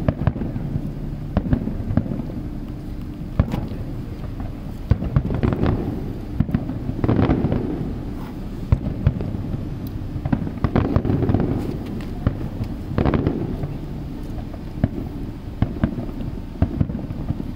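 Fireworks display going off: a continuous run of sharp bangs and crackles at irregular intervals, with thicker flurries about seven, eleven and thirteen seconds in.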